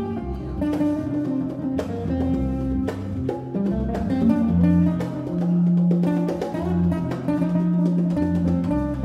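Live jazz band: acoustic guitar plucking over bass with hand drums, including held low bass notes in the second half.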